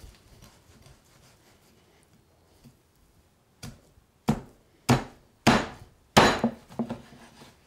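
Meat cleaver chopping through a breast of baby lamb between the ribs and striking a wooden cutting board: five sharp chops about half a second apart, starting a little past halfway.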